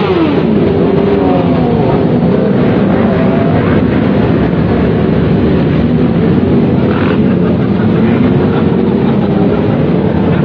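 A column of motorcycles riding past close by, several engines at once, their pitch rising and falling as riders throttle on and off.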